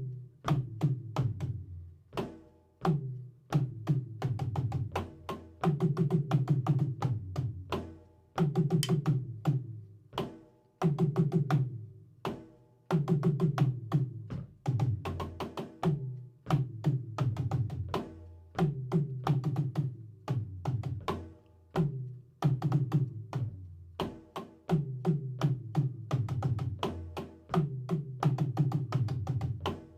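A drum kit played by a beginner drummer in short runs of rapid strokes, one run about every two seconds with a brief pause between.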